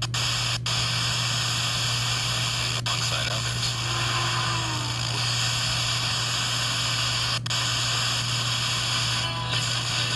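FM radio hiss from an RTL-SDR receiver played through an Android phone, with the tuning stepped between broadcast stations. The hiss cuts out briefly three times, and faint traces of a station come through near the middle.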